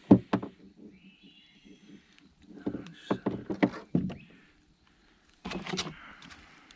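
Fishing gear being handled in a small boat: irregular knocks and clatters, loudest just after the start and in a cluster through the middle, with a faint high squeak about a second in.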